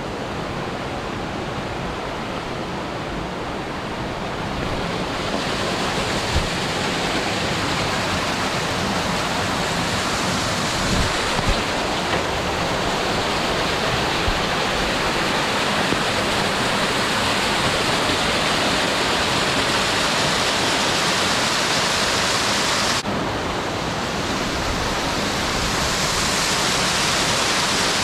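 Cascading water of a mountain stream rushing steadily, a dense even hiss. It swells a little about five seconds in and changes abruptly about 23 seconds in, as at an edit.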